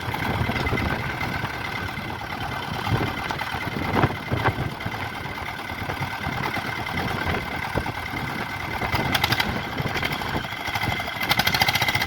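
Swaraj 855 tractor's three-cylinder diesel engine running steadily, with a sharp knock about four seconds in. The note does not drop under load, which the men put down to the clutch not taking the load.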